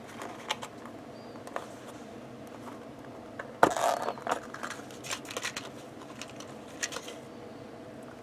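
Hard small objects being handled: scattered clicks, then a sharp knock about three and a half seconds in followed by a brief clatter, over a faint steady hum.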